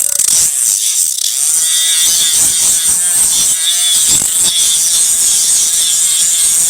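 A piece of scrap steel being scraped clean: continuous, loud metal scraping with a hissing top and a wavering pitch.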